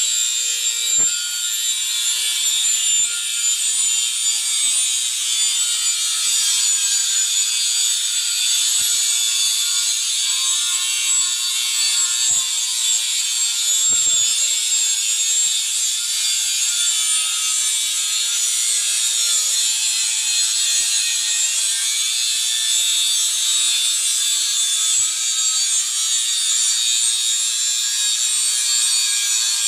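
Electric angle grinder with an abrasive cutting disc cutting through a steel pipe: a steady, high-pitched grinding whine and hiss as the disc bites into the metal.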